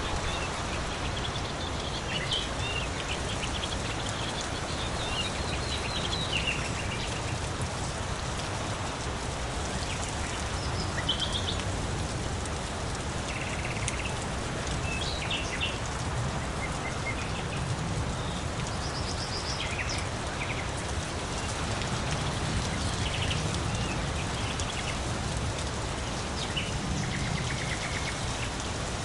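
Steady rain falling, with brief high bird chirps and calls now and then throughout.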